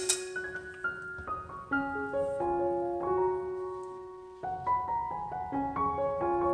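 Background piano music: a gentle melody of held notes over a simple accompaniment, thinning out briefly about four seconds in before picking up again.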